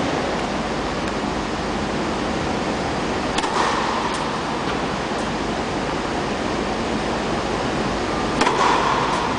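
Two sharp tennis ball strikes off a racket, about five seconds apart: one about three and a half seconds in and the second a serve near the end. A steady rushing noise, like the fans that keep an air-supported court dome inflated, runs underneath.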